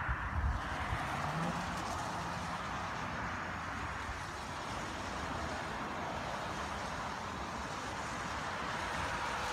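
Steady hiss of moderate rain falling outdoors, with a few low thumps on the microphone in the first second.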